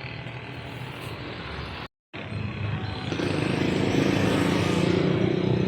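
Street traffic noise with vehicle engines running. It cuts out completely for a moment about two seconds in, then comes back louder and steadier.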